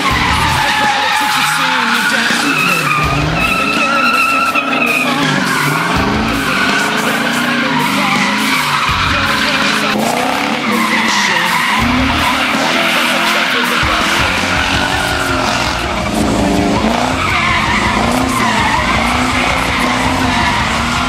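Nissan 240SX's swapped Infiniti Q45 V8 revving up and down again and again while the rear tyres squeal and skid continuously through a drift.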